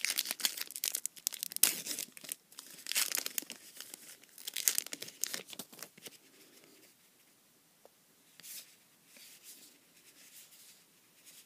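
A wrapper from a 2012 Topps Allen & Ginter trading-card pack being torn open and crinkled, with dense crackling for about six seconds. After that come only a few soft rustles.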